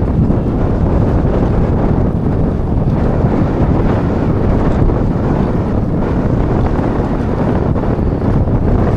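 Strong wind buffeting an action camera's microphone: a steady, loud low rumble.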